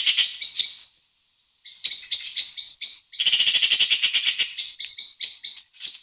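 Eurasian magpie giving its harsh, rapid rattling chatter in three runs, with a short break about a second in and a brief pause near the middle.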